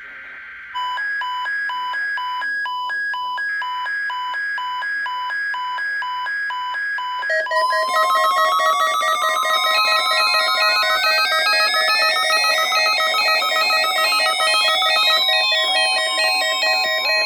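Several NOAA weather radio receivers sounding off at once for a Required Weekly Test. First comes a buzzy digital alert header with a steady repeating beep over it. About seven seconds in the sound gets louder, with many overlapping alert beeps, a steady alarm tone and a siren tone that sweeps slowly up and then back down.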